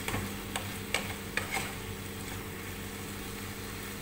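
Chicken pieces frying in a pan as a wooden spatula stirs them, knocking against the pan a few times in the first second and a half, then a steady sizzle. A low steady hum runs underneath.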